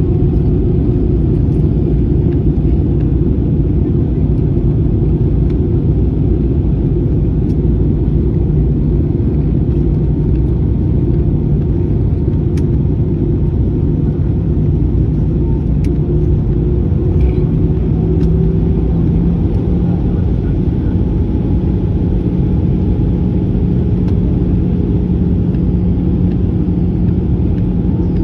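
Steady cabin noise inside an Airbus A320-214: a low rumble of its CFM56 engines and airflow with a constant hum, the hum shifting slightly higher in pitch about twenty seconds in.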